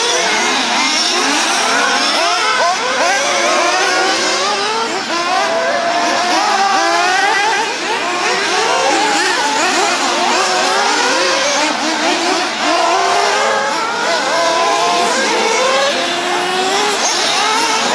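Several 1:8 scale nitro off-road RC buggies racing together, their small two-stroke glow-fuel engines whining and revving up and down. Many high engine notes overlap, rising and falling constantly as the cars accelerate and brake.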